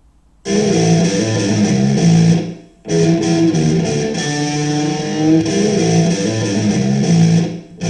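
Intro music led by guitar, starting about half a second in, with a brief break a little under three seconds in.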